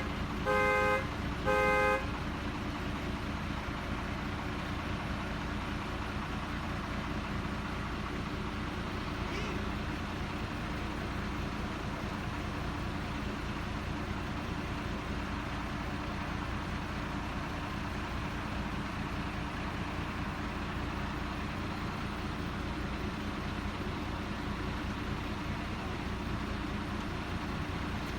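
A work vehicle's reversing alarm beeping about once a second, stopping about two seconds in, over an engine running steadily.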